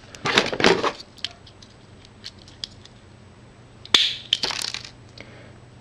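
Crackling and rustling of a cable's small wires being handled, in two brief bouts, the second opening with a sharp click about four seconds in.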